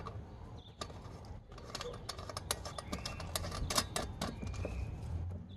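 Small irregular clicks and taps of fingers threading a small nut and plastic washer onto a generator's key switch, on its plastic control panel.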